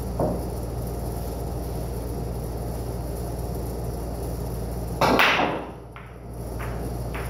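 Pool break shot: about five seconds in, the cue ball smashes into the racked balls with a loud crack and the balls clatter apart. A few lighter clicks follow as the balls hit each other and the cushions, over a steady background hum. There is a light knock just after the start.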